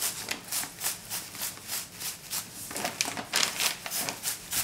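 Kitchen knife blade scraping lightly across a bunch of fresh minari (water dropwort), shaving off loose leaves in quick rasping strokes, about four a second.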